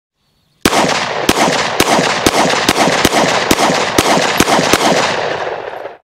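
Ten rapid shots from a 9mm pistol, about two a second, each followed by echo that fills the gaps between shots.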